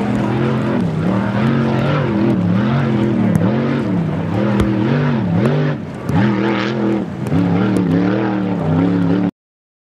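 K-boat v-drive drag boat's racing engine running at speed, its pitch rising and falling over and over, about once a second, with a brief drop in level a little past halfway. The sound cuts off suddenly near the end.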